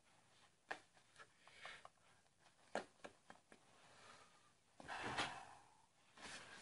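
Quiet room with faint rustles and a few soft clicks; a louder, brief rustle comes about five seconds in.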